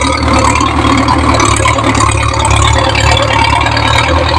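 Ford New Holland 6640 tractor's diesel engine running steadily while the tractor drives, with a rattle over the low engine hum.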